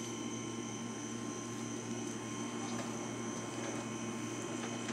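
A steady electrical or machine hum with several unchanging tones, and a few faint clicks over it.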